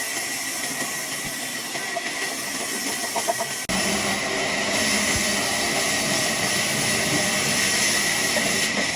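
Sawmill machinery running: a steady hissing noise with a high whine through it. A little under four seconds in, the sound abruptly becomes louder and fuller.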